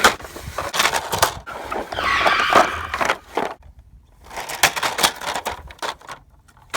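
Car crash sound effects: a run of hard impacts and crunches, a skidding tyre screech about two seconds in, then another cluster of crashing impacts near the middle of the clip.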